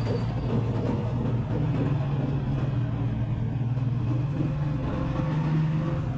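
A steady low rumble of a running engine.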